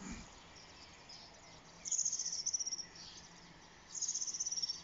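A songbird singing two short, fast, high-pitched trills, one about two seconds in and another near the end, each lasting about a second, over a faint steady low hum.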